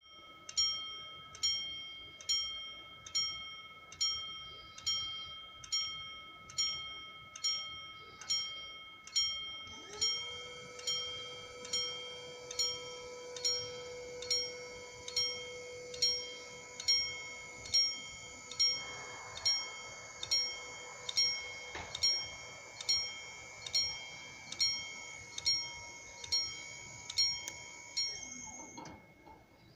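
Italian level-crossing warning bell ringing, a ding a little more than once a second. About ten seconds in, a steady hum rises in and runs alongside it as the barrier motors lower the booms. Both stop together just before the end, once the barriers are down.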